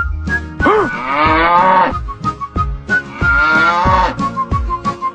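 Two long, drawn-out animal calls, each rising then falling in pitch, over background music with a beat.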